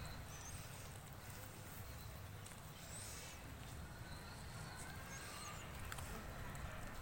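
Faint outdoor ambience: a steady low rumble, with two faint high chirps and a few soft clicks.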